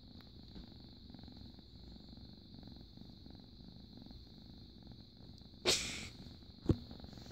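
Domestic cat purring right against the microphone, a steady low pulsing rumble. Near the end a brief loud burst of noise, then a sharp click about a second later.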